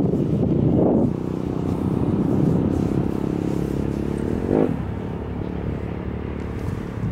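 GT22 diesel-electric locomotive pulling away under full power, its diesel engine giving a steady drone with many even overtones. A short higher-pitched sound stands out briefly about four and a half seconds in.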